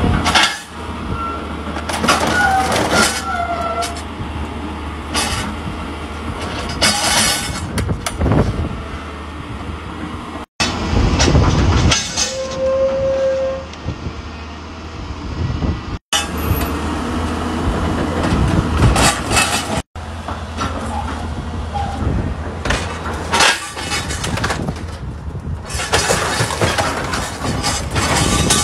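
Hydraulic excavator with an orange-peel grapple crushing and tearing a scrapped truck cab: a diesel engine running steadily under repeated crashes of bending and breaking metal, with short metal squeals. The sound cuts out abruptly three times.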